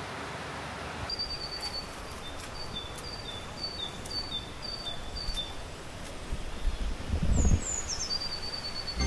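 Birds calling: a run of short, high chirps alternating between two pitches, then a couple of falling notes and a held note near the end, over a steady rushing background of rain or stream water. A brief low thump comes about seven seconds in.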